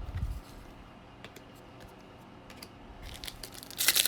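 Trading-card pack handling: a soft bump at the start and a few light clicks. About three seconds in, the foil wrapper of a card pack starts to crinkle loudly as it is torn open.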